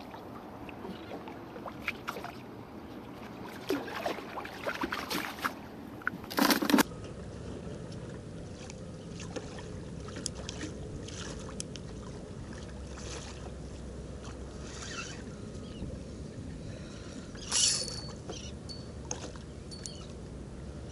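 Water sloshing and lapping around a kayak, with scattered knocks and clicks and a couple of louder splashes. The background changes abruptly about seven seconds in.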